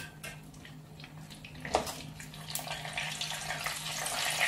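Cooking oil sizzling in a frying pan around frying turon, the sizzle growing louder through the second half. A sharp clack of metal tongs about two seconds in as a fried roll is lifted out.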